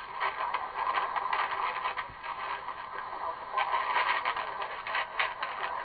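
Weak transatlantic medium-wave AM signal of CFTR Toronto on 680 kHz, heard through a Tecsun PL-380 portable radio's speaker. A voice is barely made out under hiss and crackle, and the signal fades up and down.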